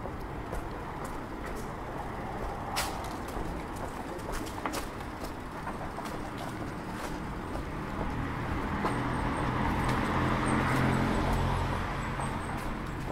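Street traffic, with a road vehicle passing close by: its engine and tyre noise build from about eight seconds in and fade near the end. Scattered sharp clicks sound over the steady background.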